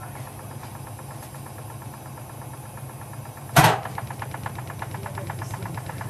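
Beko washing machine running with heavy bricks in its drum: a steady motor hum with faint ticks, then one loud bang about halfway through as the load slams inside, followed by fast, even knocking as the drum turns.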